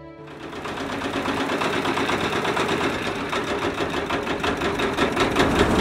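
Boat's single-cylinder diesel engine running with a fast, even chugging. It comes in just after the start and grows louder over the first couple of seconds.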